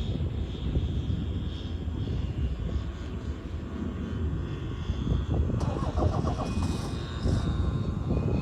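Radio-controlled F3A aerobatic model airplane in flight, its motor and propeller giving a thin high whine that grows louder and fuller about two-thirds of the way through as the plane comes closer. Heavy, gusty wind noise on the microphone underneath.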